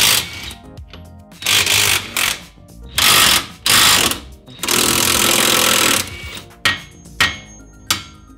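Cordless impact wrench hammering in about five bursts, the longest about a second and a half, as it spins off the front suspension fasteners of a Shelby GT350 during strut removal. A few short sharp clicks follow near the end.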